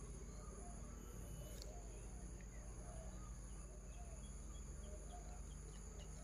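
Outdoor ambience of insects and birds: a steady high-pitched insect drone with short chirping calls repeating throughout.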